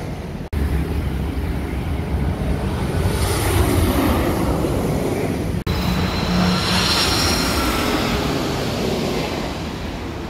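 Steady rumble of road traffic, cars and motorbikes, with a jet airliner on low final approach adding a high engine whine from about six seconds in. The sound drops out abruptly for an instant twice, at about half a second and five and a half seconds in.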